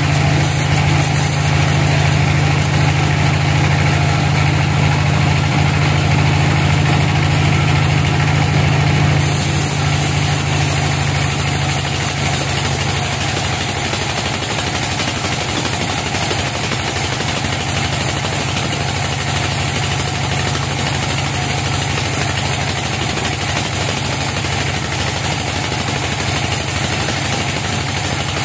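Sawmill band saw running steadily as its blade rips lengthwise through a log, a continuous machine drone with a strong low hum. The sound brightens about nine seconds in.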